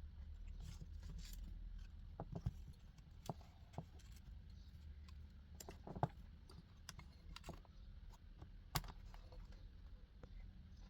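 Scattered light clicks and taps of small parts being handled, a handful of them spread unevenly, over a faint low steady hum.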